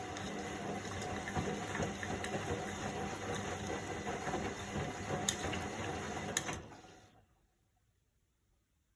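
Washing machine running, its drum churning water and clothes with a dense sloshing noise and scattered clicks and knocks; it dies away about seven seconds in.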